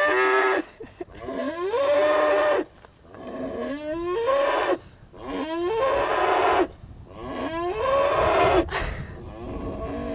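A head of cattle bellowing over and over, a string of long calls about every two seconds, each rising in pitch: the animal is worked up and agitated.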